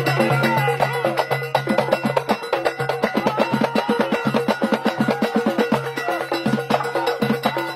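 Moroccan Houara folk rhythm played on hand percussion, frame drums among it, in a fast, dense, unbroken beat.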